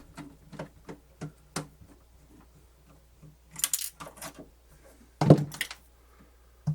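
Parts of a cassette deck being handled as it is taken apart: scattered light clicks, a brief rattle of clatter about three and a half seconds in, and a louder knock just after five seconds.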